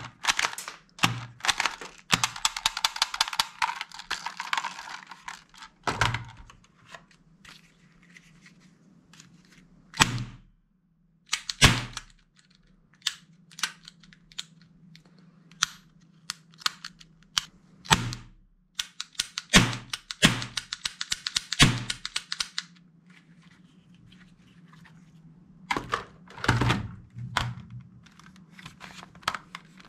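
Plastic toy guns being handled and worked: scattered clicks and knocks of plastic parts, with two stretches of rapid clicking, about two seconds in and about twenty seconds in.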